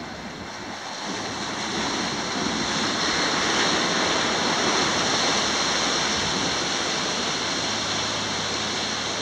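Sea waves surging and breaking over shoreline rocks, a steady rushing wash that swells about two seconds in.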